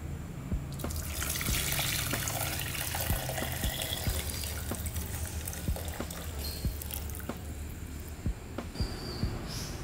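Thin caramel syrup poured from a pan into a glass bowl: a steady stream splashing into the liquid from about a second in, easing off and thinning to drips near the end.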